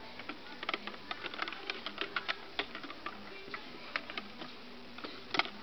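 A teapot being handled and knocked about by a monkey: irregular light clicks and knocks, with a louder clatter near the end.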